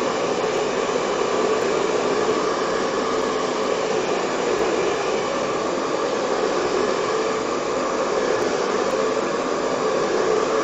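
Handheld hot-air dryer blowing steadily at close range, drying wet texture paste and watercolour on a wooden board.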